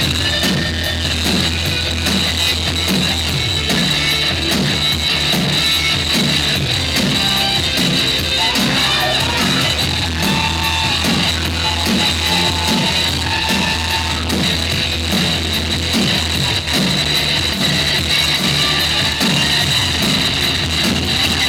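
Live band music playing an instrumental passage with a steady, repeating beat.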